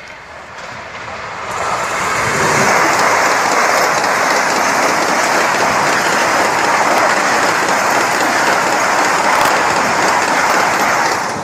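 A high-speed passenger train passing close by at about 180 km/h. The rushing noise of wheels and air builds over the first two seconds as it arrives, then holds steady and loud while the coaches stream past, and cuts off abruptly at the end.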